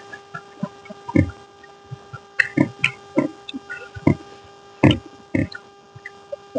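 Close-miked eating sounds: irregular chewing and lip-smacking clicks, a few per second, over a steady electrical hum.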